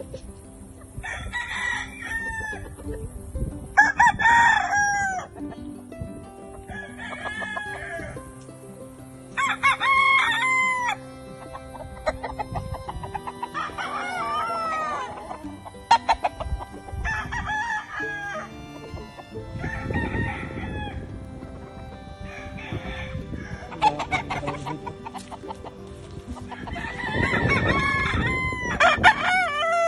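Several roosters crowing one after another, about ten crows in all, the last ones coming close together near the end.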